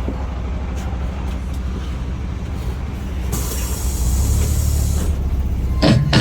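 Bus engine rumbling steadily inside the bus. About three seconds in, a hiss of air lasts under two seconds. Two loud low thumps come near the end.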